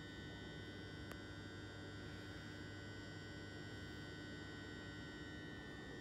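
A London Overground Class 378 electric train moving past at low speed, heard as a faint, steady electrical hum with several fixed high tones over a low rumble. There is one short click about a second in.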